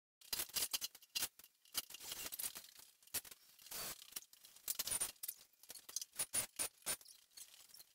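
Irregular cracks, snaps and scraping from a faux fireplace surround being pried and broken apart, a quick uneven series of sharp clicks.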